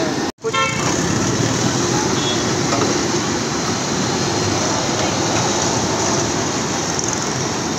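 Steady, loud din of a busy street food stall, with faint voices in the background. It cuts out for a split second near the start.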